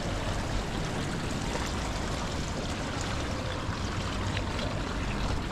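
Steady trickling and rushing of water running into the grated overflow gutter of an outdoor swimming pool.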